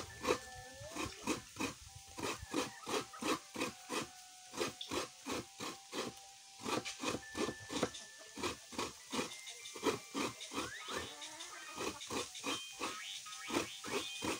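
Coconut half scraped hard against the serrated blade of a bench coconut grater (kudkuran), a rhythmic rasping of about three strokes a second.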